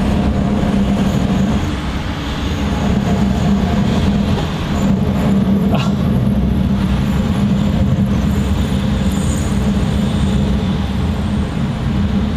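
A van's brakes grinding badly as it is driven and braked, heard from inside the cab as a steady low grinding drone over road and engine noise; the grinding is the sign of a brake fault.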